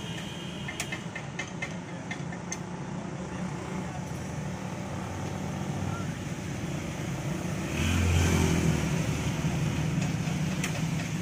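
Street traffic on a rain-wet road: a steady low engine hum, with a vehicle passing close about eight seconds in, louder for a moment and then fading.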